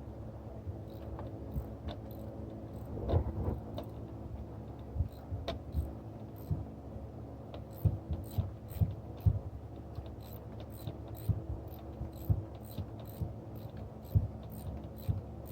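Hand ratchet clicking in short runs of strokes, with scattered knocks of tools on metal, over a steady hum.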